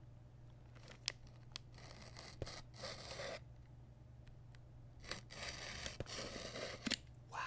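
Utility knife blade slicing through packing tape along the seam of a cardboard box, in two long cuts, with a few light clicks and taps of the knife on the cardboard around them.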